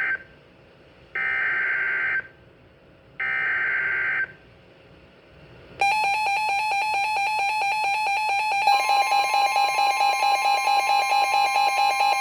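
Emergency Alert System tones on a NOAA Weather Radio broadcast: three one-second bursts of warbling SAME digital header data, a second apart, then from about six seconds in a continuous, slightly pulsing alert tone, joined by a second, higher tone about nine seconds in. This signals the start of a severe thunderstorm warning.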